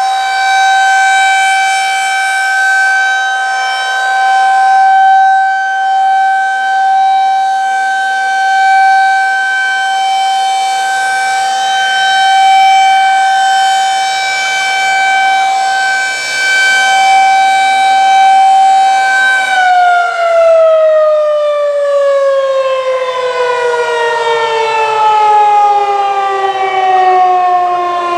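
Federal Signal 2001-SRNB electromechanical siren sounding its steady 772 Hz alert tone. About twenty seconds in, the tone stops holding and slides steadily down in pitch as the rotor winds down at the end of the three-minute alert cycle.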